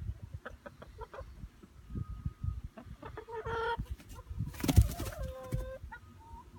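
Hens clucking and calling in a nest box: a run of short clucks and a few longer pitched calls, one held briefly near the end. A loud rustle about four and a half seconds in is the loudest sound.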